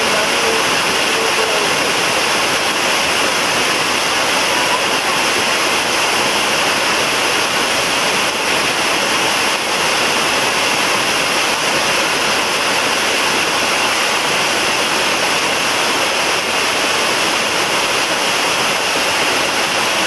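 Waterfall cascading down a rock face close by: a loud, steady, unbroken rush of falling water.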